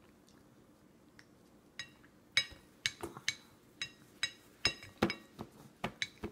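Stainless steel baby bowl struck over and over, about a dozen sharp clinks, each ringing briefly. They come irregularly, roughly two a second, starting about two seconds in.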